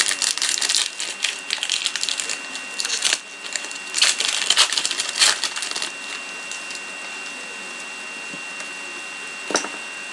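Crinkling and rustling of a trading-card pack wrapper as it is crumpled and torn open, dense and irregular for about six seconds. Then it goes quieter, with a single click near the end.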